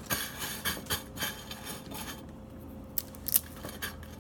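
Light scraping and clicking as noodle-cup packaging, seasoning and utensils are handled: a quick run of short scrapes, then a pause and a few clicks about three seconds in.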